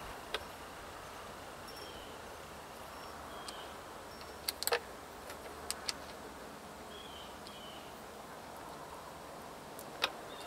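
Metal clinks and clicks of a wrench and cable lugs on lead-acid battery terminals as cables are bolted on: a few scattered sharp clicks, with a quick cluster about four and a half seconds in and a single one near the end, over a faint steady hiss.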